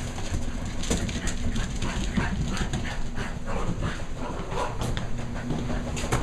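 German Shepherd puppies playing rough, scuffling and scrabbling with short dog noises among the many quick clicks and scrapes. A washing machine runs underneath with a steady low hum.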